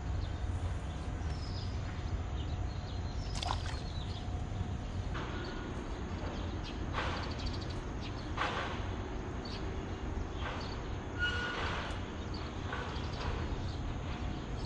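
Steady low rumble of traffic on the elevated highway overhead, with scattered short knocks and faint chirps.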